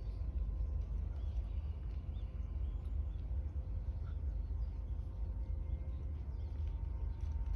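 Quiet outdoor ambience: a low, steady rumble with a few faint bird chirps. No club strike is heard.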